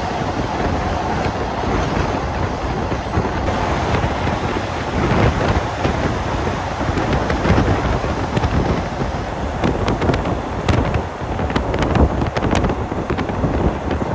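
State Railway of Thailand passenger train running at speed, heard from aboard: a steady rush of wind and rolling noise. In the second half, rapid clicking and clacking comes from the wheels on the track.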